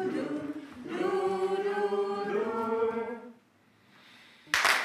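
Unaccompanied singing of a song's melody that ends a little over three seconds in. Near the end comes one short, loud burst of noise.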